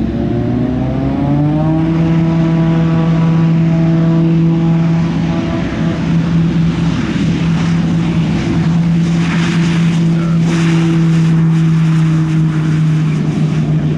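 Daher TBM-960 single-engine turboprop on its takeoff roll: the engine and propeller tone rises in pitch over the first two seconds as power comes up, then holds as a loud, steady propeller hum.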